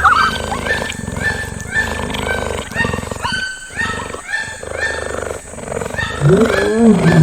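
Wild animal calls: a run of short, repeated high-pitched calls about twice a second, then a lower drawn-out call that rises and falls near the end.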